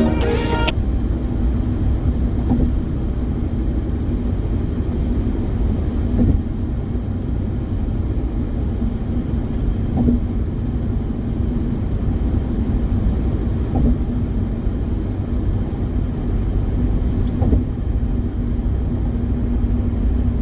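Steady low rumble of a car driving on the road, with a faint steady hum and a few light knocks along the way.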